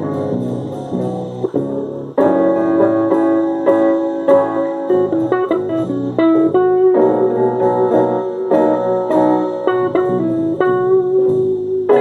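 Instrumental music of plucked guitar and keyboard notes, with a held melody note in the middle and a fresh burst of notes about two seconds in.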